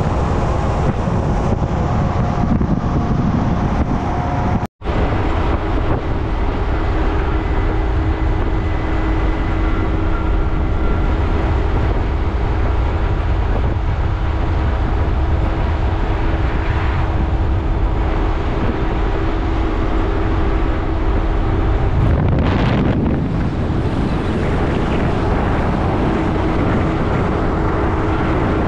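Steady engine and road noise of a moving car, with wind rushing over the microphone and a low steady hum running through it. The sound cuts out for a split second about five seconds in.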